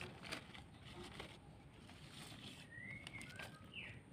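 Faint rustling and crinkling of a thin plastic bag being handled, with a few short bird chirps that glide up and down about three seconds in.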